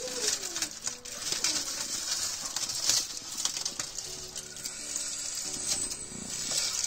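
Ribeye steak searing in a very hot pan: a steady high sizzle with sharp crackles and spits of hot fat.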